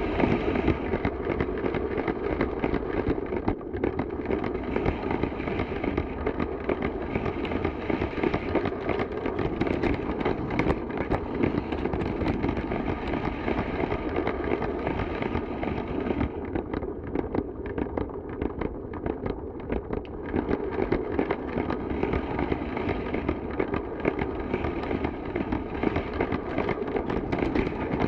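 Toy Lego train running on plastic track: a steady motor whine under continuous dense clattering and clicking.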